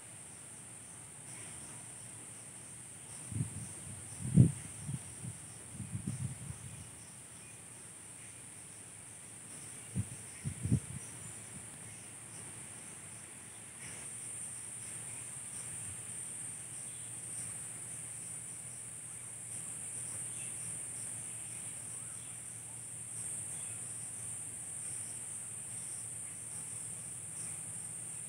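Steady high-pitched drone of insects calling. A few low thumps break in about three to six seconds in, the loudest of them near four and a half seconds, and two more come about ten seconds in.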